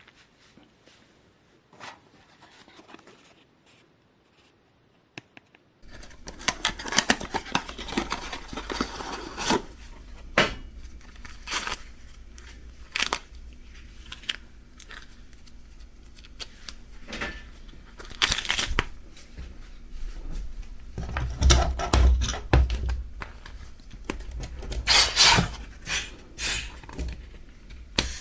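Hands handling a new bicycle inner tube and its packaging: crinkling, rustling and tearing with small knocks and scrapes. The first few seconds hold only a few faint clicks before the handling gets busy.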